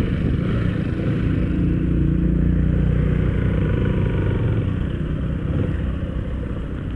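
Engine of a motor vehicle passing close, building up about a second and a half in and easing off after five seconds, over steady low road and wind noise.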